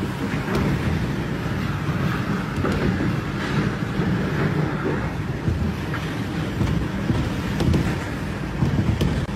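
Violent IF1.5 tornado winds blowing hard and buffeting the phone's microphone: a continuous, heavy low rumble with gusty surges.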